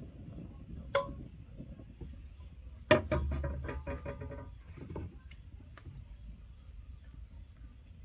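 Metal clanks from improvised blacksmithing work: a sharp metal tap about a second in, then a louder metal clang about three seconds in that rings on for over a second, followed by a few faint ticks.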